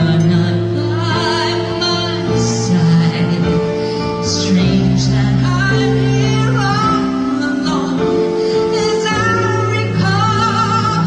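A woman singing a slow ballad live into a microphone with band accompaniment, amplified through a concert sound system, holding long notes with vibrato.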